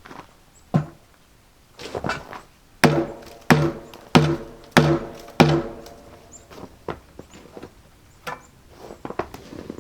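Hammering: a run of five evenly spaced, ringing blows in the middle, among scattered lighter knocks and taps.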